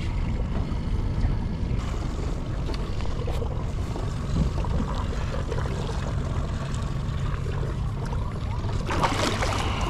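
Steady low rumble of an outboard motor running on a small fishing boat, with wind on the microphone. A brief splashing burst comes near the end as a gaff is swung at the halibut.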